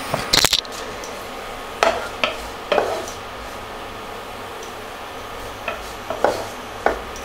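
A glass pan lid is lifted off with a clatter about half a second in. Then a wooden spatula stirs butter-fried potato sticks in a nonstick pan, knocking and scraping against the pan about six times over a steady sizzle.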